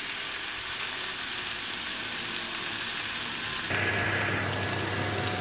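Pork ribs, onions, carrots and potatoes sizzling on a hot flat griddle: a steady frying hiss. About two-thirds of the way through it grows a little louder, and a low hum joins it.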